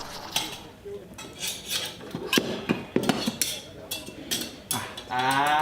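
Crockery and metal clinking and knocking: a string of sharp clicks and knocks from cups and a metal jug being handled at a coffee machine. A drawn-out voice comes in near the end.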